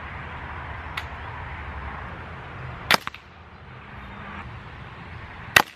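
Sharp, distant cracks of a Daisy 880 multi-pump air rifle shooting through a DonnyFL Ronin suppressor. There is a faint crack about a second in, then a louder one about three seconds in followed at once by a smaller click, the pellet hitting the target. The loudest crack comes near the end.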